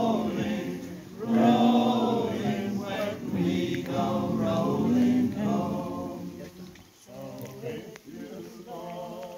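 Several voices singing a cappella in chorus, holding long notes. The singing is louder for the first six seconds or so, then quieter.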